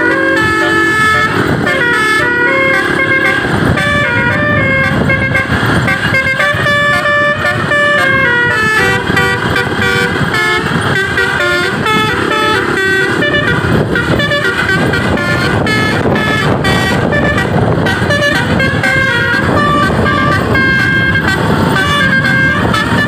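Indonesian bus 'telolet Basuri' musical horn, driven by a DAV horn module, playing a quick melody of stepping notes. A low rumble runs underneath from a few seconds in.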